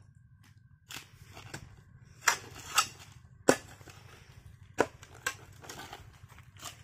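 A hoe chopping into hard, dry, stony soil: about eight sharp strikes, roughly one or two a second, with dirt scraping and crumbling between them.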